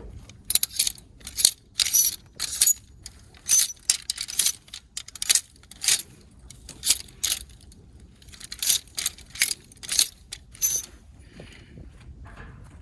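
Clothes hangers sliding and clicking along a metal clothing rack as garments are flipped through: a quick string of sharp metallic scrapes and clicks, with a short pause about halfway through.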